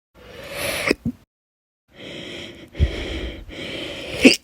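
A woman's chronic hiccups: noisy breaths each ending in a sharp, abrupt catch, one about a second in and another near the end, with a sudden low jolt in between.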